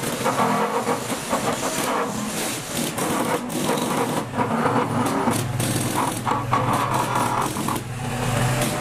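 Excavator-mounted vibratory pile driver and the excavator's diesel engine running steadily as a PVC sheet pile is driven into wet mud on a steel mandrel.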